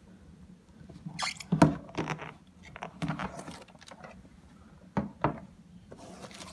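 Hands opening a cardboard model train box: the lid lifted off and a clear plastic sheet rustling over the contents, with several short scrapes and light knocks.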